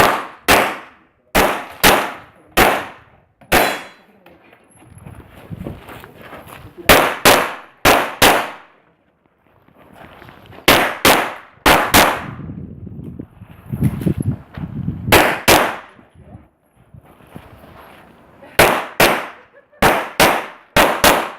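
Glock pistol shots, fired mostly in quick pairs about half a second apart, with pauses of one to three seconds between groups as the shooter moves through a practical-shooting stage.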